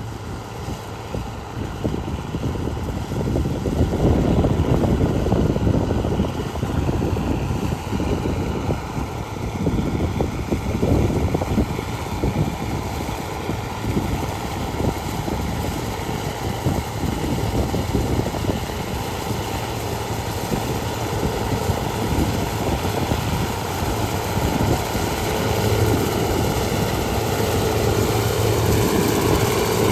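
Harvest machinery's engine running with a steady drone and dense rumble; a steady higher hum joins in near the end.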